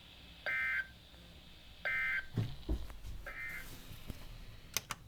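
Emergency Alert System end-of-message signal: three short bursts of two-tone digital SAME data, evenly spaced about a second and a half apart, marking the close of the alert. A couple of low thumps come between the second and third bursts, and two sharp clicks come near the end.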